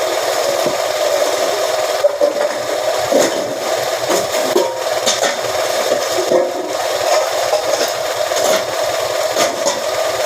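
Press machine running steadily, with scattered sharp metal knocks and clicks.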